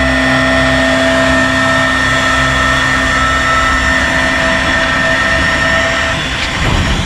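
Power drill running steadily as a worker bores holes for the hooks that will hold a pallet box under a truck trailer. Its steady whine carries over a dense grinding noise, and some of the higher tones drop out about six seconds in.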